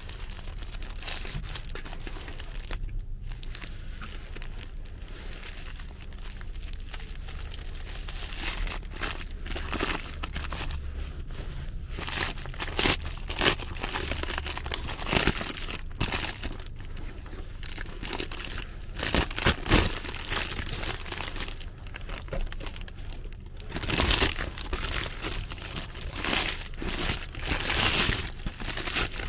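Paper crinkling and rustling as a hamburger is slid out of its cardboard box and its white paper wrapper is unfolded by hand. The irregular crackles are sparse at first and grow louder and busier from about halfway through.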